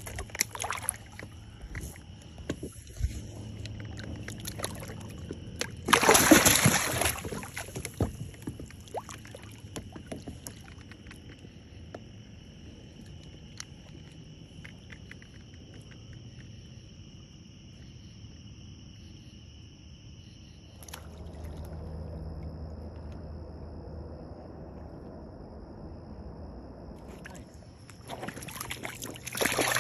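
Channel catfish being released into the water, with loud splashing about six seconds in and again near the end and quieter water noise between.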